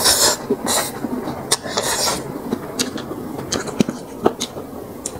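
Close-miked eating sounds: chewing and smacking a mouthful of rice vermicelli with fermented pork, with many short wet clicks and a couple of hissy slurps or sharp breaths near the start and about two seconds in.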